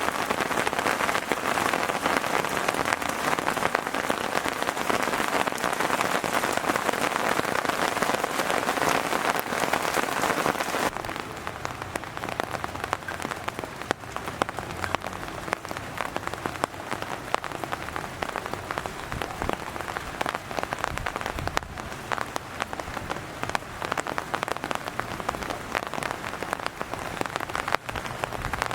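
Heavy rain falling, a dense, steady hiss of many drop ticks. About eleven seconds in it abruptly becomes quieter and duller.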